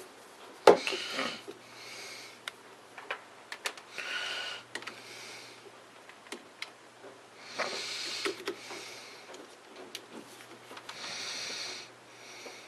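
Soft breaths through the nose close to the microphone, about every three seconds, with small clicks and knocks from handling a power bank and USB cables, a sharper knock about a second in. A faint steady hum runs underneath.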